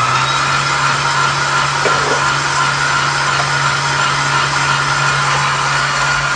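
KitchenAid Heavy Duty stand mixer's motor running steadily at speed, driving its meat grinder attachment, with a constant low hum and a high whine. A chicken and vegetable mix is being fed into the grinder.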